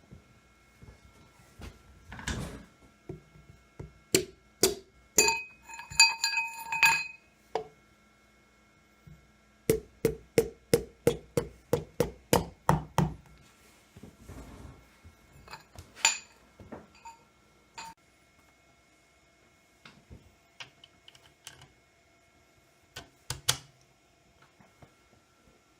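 Metal engine parts clinking and knocking during piston installation with a tapered ring compressor. There is a ringing metal clink about five to seven seconds in, and a quick run of about a dozen knocks near the middle.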